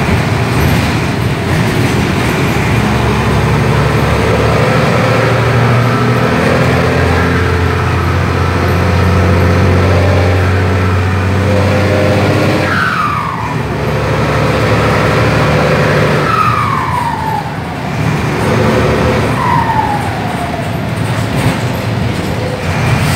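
Mercedes-Benz 1721 bus's turbo-diesel engine running under way, heard from inside the cabin, its turbocharger fitted with a 'pente' modification that makes it whistle. About halfway through and twice more after, the turbo whistle falls sharply in pitch as it spools down.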